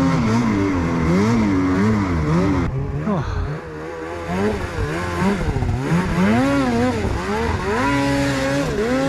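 Snowmobile engine revving up and down over and over as the throttle is worked, with a quieter dip about three seconds in.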